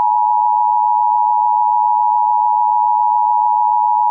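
Steady electronic broadcast tone, one loud unbroken pitch held throughout, signalling the interruption of the broadcast for an emergency bulletin.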